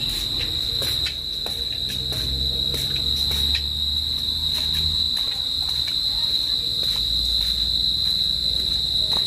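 Crickets chirring in one continuous, steady high-pitched drone, loud enough to ring in the ears.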